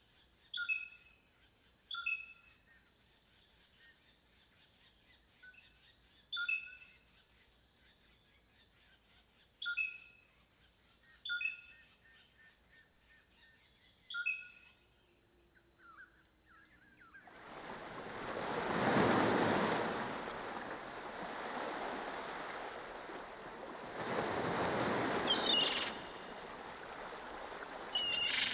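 Outdoor ambience: short bird chirps repeat every few seconds over a steady high insect-like drone, which stops about two-thirds of the way in. Then a rushing noise takes over, swelling twice, with a couple more chirps near the end.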